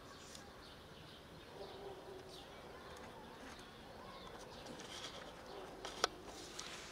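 Faint outdoor ambience of small birds chirping on and off, with one sharp click about six seconds in.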